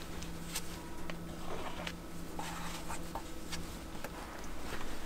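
Plastic spreaders scraping and ticking against each other and a mixing board as polyester body filler with hardener is mixed and wiped off, over a steady low hum.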